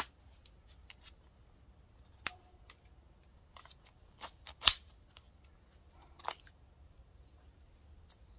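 Hooks of a pot hanger clicking onto the rim of a plastic plant pot: a few separate sharp clicks, the loudest about halfway through.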